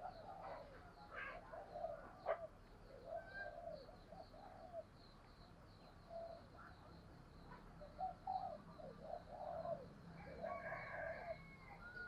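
Spotted dove giving soft, short low coos at irregular intervals. A faint high chirping repeats evenly behind them.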